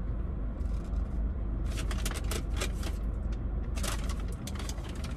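A paper fast-food bag rustling and crinkling in two spells of crackly handling, about two seconds in and again near the end, over a steady low hum.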